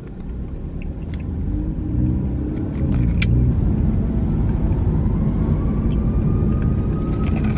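Car cabin noise from a car driving: a low rumble of engine and road that grows louder about two seconds in as the car picks up speed, then holds steady. A faint, slowly rising wail, a siren, comes in over the last few seconds.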